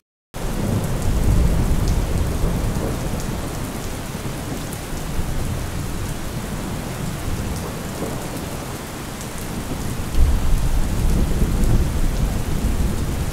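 Thunderstorm: rain falling steadily, with thunder rumbling low in the first couple of seconds and again from about ten seconds in.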